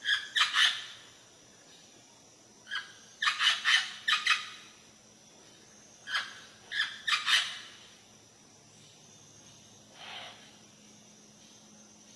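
Parrot screaming: clusters of short, harsh calls, several in quick succession, repeating about every three seconds, with a single fainter, lower call near the end.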